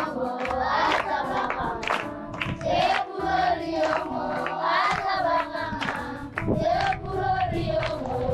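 A group of voices singing a choir-style song over sharp percussive beats and a stepping bass line.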